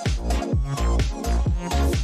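Electronic dance music with a steady kick-drum beat and a synth melody.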